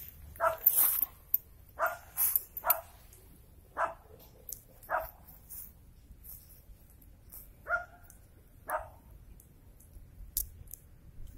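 Short, separate animal calls, about nine in all: several in quick succession at first, then fewer and further apart.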